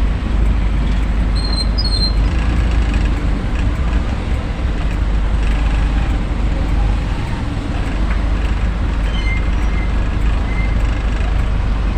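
Truck engine running steadily under way: a deep low rumble mixed with road noise. A few faint, short high chirps come in briefly about two seconds in and again near the end.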